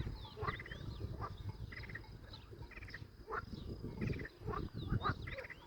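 Wild animal calls outdoors: short pulsed trills and quick chirps repeating about once a second, over a steady low rumble.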